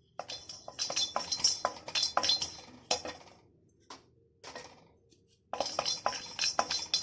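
Cinnamon sticks rattling in a dry kadai as they are stirred with a metal spatula, a quick clinking clatter of metal on metal. It comes in two bouts, with a pause of about two seconds between them.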